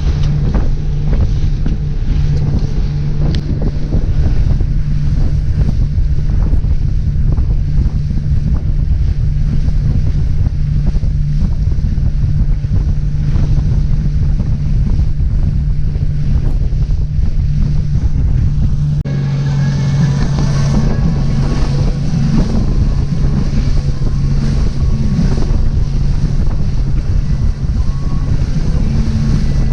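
Motorboat under way: its engine runs with a steady low hum while wind buffets the microphone and water rushes past the hull. About two-thirds through, the engine note drops slightly and the rushing hiss gets brighter.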